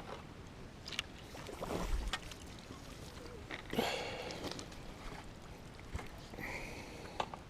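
Water splashing in irregular bursts as a small hooked fish thrashes at the surface while being played in on a pole, with a few light clicks and knocks of tackle.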